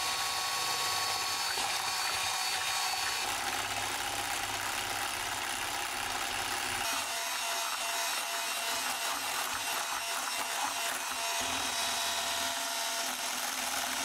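Electric hand mixer running steadily on its lowest speed, its twin beaters whirring through a thick cream-cheese batter in a glass bowl.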